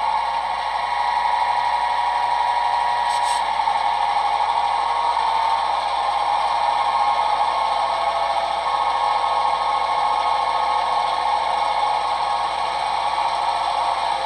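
An HO scale model diesel locomotive's DCC sound decoder playing a diesel engine at idle through its small onboard speaker. The idle is steady and thin, with no low end, and a brief tick comes about three seconds in.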